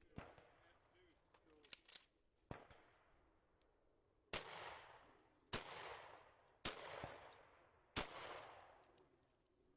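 Shotgun fired four times, a little over a second apart, each sharp report trailing off in a fading echo. Before that come a few fainter sharp cracks and clicks.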